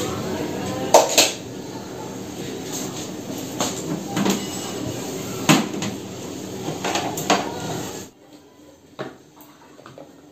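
Small bottles, tubes and containers being picked up and set back down on a wooden shelf while dusting: scattered clinks and knocks, a few of them sharp.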